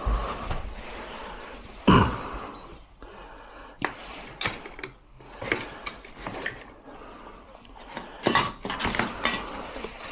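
Metal lock parts and hand tools clinking and knocking as they are handled and tried for fit. There is a loud knock about two seconds in, then scattered clinks and clicks.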